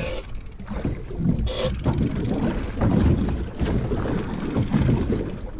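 Wind buffeting the microphone, in gusts, over the noise of a small boat slow trolling at sea.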